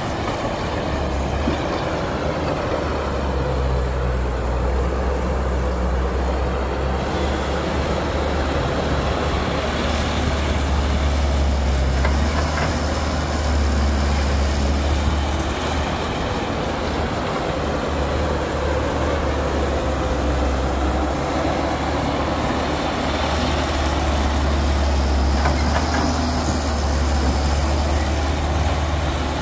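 Caterpillar tracked excavator's diesel engine running under load as it digs and swings, a steady low rumble that swells and eases with the work cycle.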